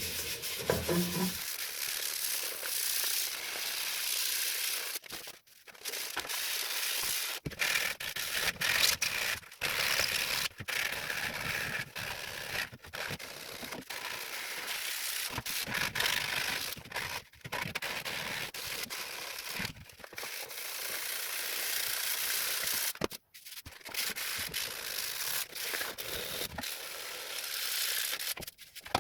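Sandpaper rubbing over a 3D-printed PLA surface, smoothing it. The steady scratchy hiss breaks off in several short pauses.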